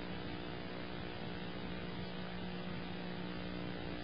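Steady low electrical hum with a faint hiss underneath, unchanging throughout: the background noise of the recording.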